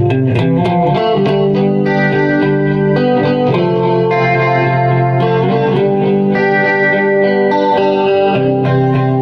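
Music led by guitar, playing held chords that change about once a second, with quick plucked notes near the start.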